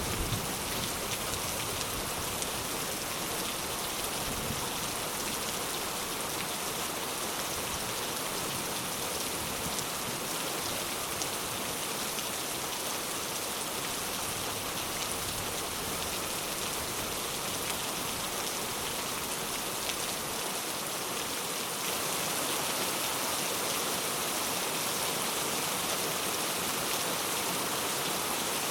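Steady rain falling and pattering on surfaces: a dense, even hiss, a little louder about three-quarters of the way through.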